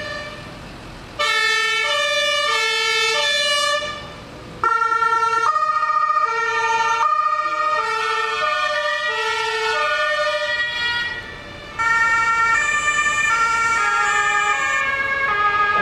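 German two-tone emergency vehicle sirens (Martinshorn), several sounding at once at slightly different pitches, each stepping back and forth between a low and a high note about every two-thirds of a second. They break off briefly about four seconds in and again near eleven seconds, then start again.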